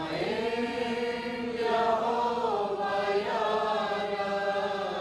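A small group of voices singing a hymn in Urdu, slow and in long-held notes.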